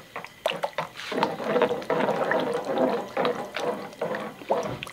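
Metal ladle stirring noodle soup in a pan: liquid sloshing, with irregular knocks and scrapes of the ladle against the pan.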